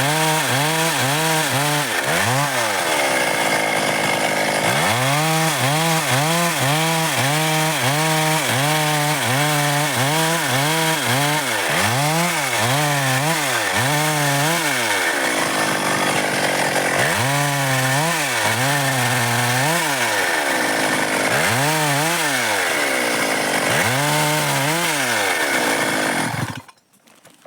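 Stihl MS 382 two-stroke chainsaw cutting dry wood, its engine pitch dipping under load and recovering again and again as the chain bites. Near the end the saw cuts off suddenly.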